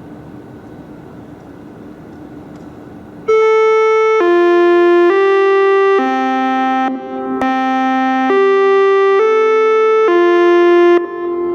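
Federal Signal DSA speaker array playing its electronic alert chime: a melody of about eight clear notes, each held just under a second, starting a little over three seconds in, as the lead-in to a test voice message. Before it there is only a steady low background noise.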